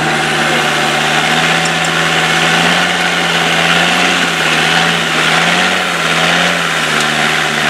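Land Rover off-road trial truck's engine idling steadily close by, its pitch drifting slightly.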